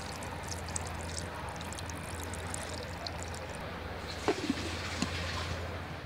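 Milk pouring in a steady stream into a steel mixer-grinder jar of mango pieces and sugar, over a low hum. About four seconds in, a few sharp knocks as the lid is fitted onto the jar.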